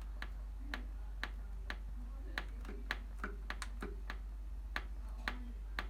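Control panel of a Hoover VisionDynamic washing machine clicking repeatedly, about two clicks a second, as the delay timer is stepped through its settings.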